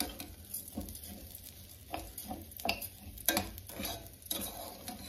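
Metal spoon stirring and scraping jasmine rice in a stainless steel pot, with irregular clicks of the spoon against the pot, while the rice toasts in garlic butter with a light sizzle.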